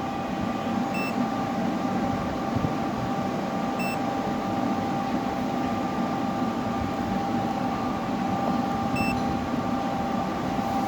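Steady electrical hum and whine of a high-power inverter fishing machine running on the test bench, with its transformers buzzing at a constant level. Three short high beeps sound about a second in, about four seconds in and near the end.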